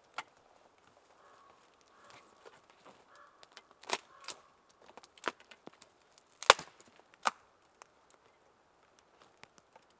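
Wooden sticks and poles knocking and cracking as they are handled and set into a shelter frame: irregular sharp knocks, the loudest about six and a half seconds in, with small clicks and snaps between.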